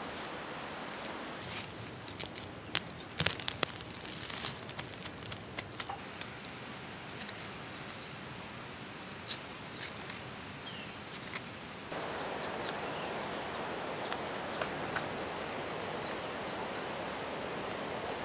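Leaves rustling and stems and roots crackling in a string of short sharp snaps as a ginger plant is pulled up by hand, over a steady outdoor hiss. About two-thirds of the way through the snapping stops and the background hiss steps up louder, with a few faint bird chirps.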